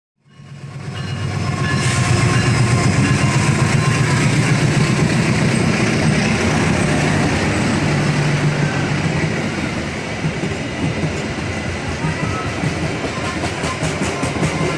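Loud, continuous rumble of a vehicle in motion, with a clattering texture. It fades in from silence just after the start.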